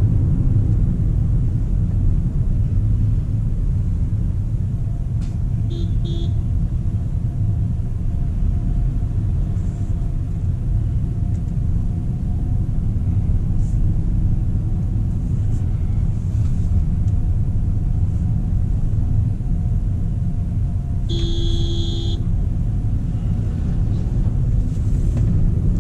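Steady low road and tyre rumble inside the cabin of a moving Honda City e:HEV hybrid sedan. A vehicle horn sounds for about a second around 21 seconds in, after a shorter beep about 6 seconds in.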